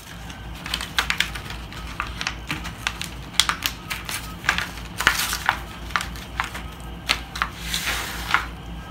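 Hands rummaging through a small bag of chair-assembly hardware, with irregular clicks and crinkles as small plastic caps and screws knock together and the bag rustles.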